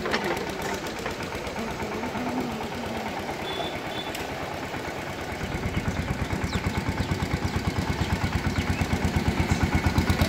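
An engine running with a slow, regular throb, growing louder from about halfway through.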